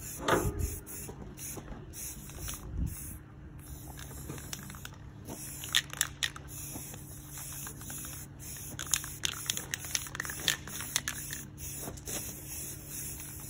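Aerosol spray-paint can hissing in short bursts with brief breaks between them, spraying paint onto a riding mower's body.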